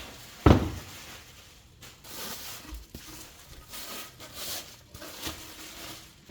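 A sharp knock about half a second in, then light rustling and knocking as the plastic body and parts of a wet/dry shop vacuum are handled.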